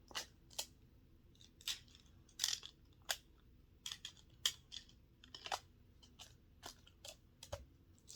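Plastic magnetic building tiles being handled and snapped together, an irregular series of sharp clicks.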